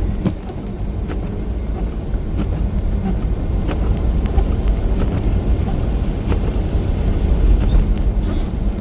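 A car driving, with a steady low rumble of engine and road noise and a few faint clicks.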